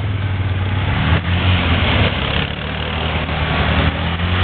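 ATV engine running with a steady low hum.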